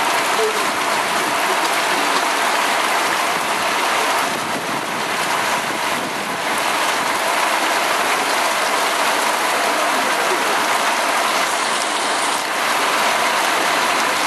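Heavy thunderstorm downpour: a steady, loud hiss of rain falling on trees and wet ground.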